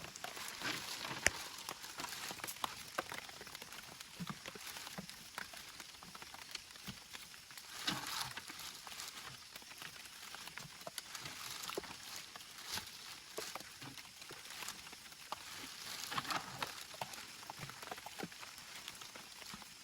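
Rain pattering steadily, full of scattered small ticks, with a couple of brief louder rustling swells.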